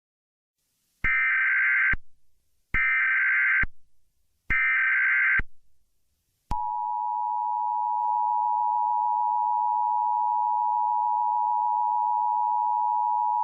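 Simulated Emergency Alert System broadcast opening: three short bursts of screeching digital data tones (the SAME header), each just under a second long and about a second apart. About halfway through, the steady two-tone EAS attention signal begins and holds on without a break.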